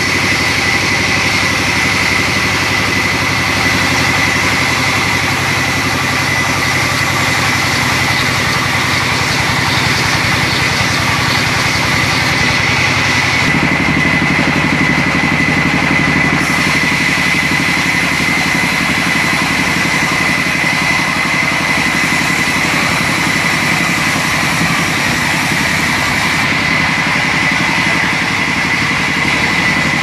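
Large vertical sawmill band saw running steadily while its blade rips lengthwise through a log, a steady high-pitched whine over the drone of the machine.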